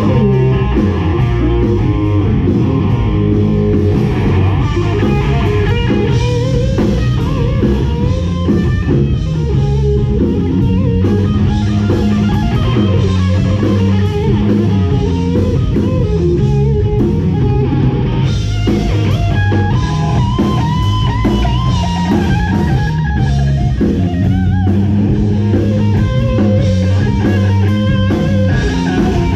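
Live rock band playing loud: electric guitar over bass guitar and drum kit, an instrumental stretch with no singing.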